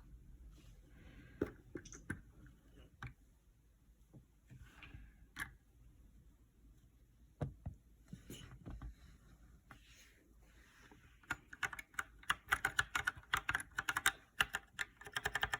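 Typing on a GK61 mechanical keyboard with Gateron Optical Brown switches: scattered single keystrokes at first, then fast continuous typing from about eleven seconds in.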